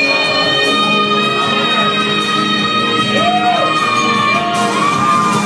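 Loud music from the performance number: a song with one long held note running through most of it, breaking off near the end.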